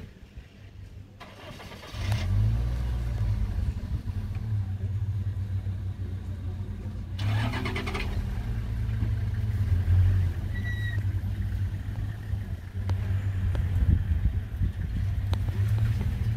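Vehicle engine starting about two seconds in, then running steadily with a low hum.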